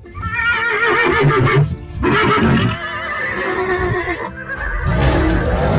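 Horse whinnying, long wavering neighs repeated several times, over background music.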